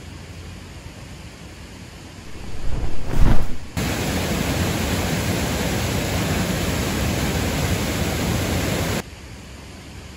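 A short, loud swelling rush of noise about two to three and a half seconds in, then waterfall water falling as a steady, even rush that cuts off suddenly about nine seconds in, leaving a faint hiss.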